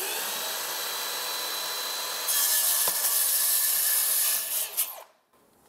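Makita circular saw running with a faint steady whine, then getting louder and harsher about two seconds in as the blade cuts through a vinyl stack-stone siding panel. It stops abruptly shortly before the end.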